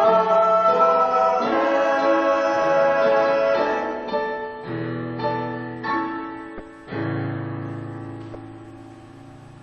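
Choir singing with piano accompaniment, bringing a song to its end: the voices stop about four seconds in, the piano plays a few closing chords, and the last chord is held and fades away.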